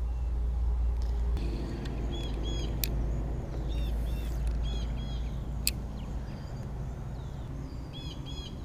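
Birds calling outdoors in short, repeated chirping phrases several times over a steady low rumble, with a couple of sharp clicks.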